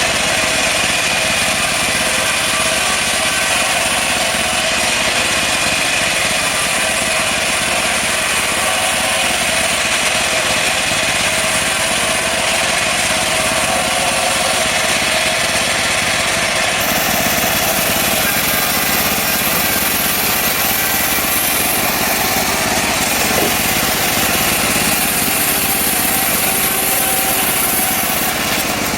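Engine-driven portable band sawmill running steadily while sawing a mahogany log.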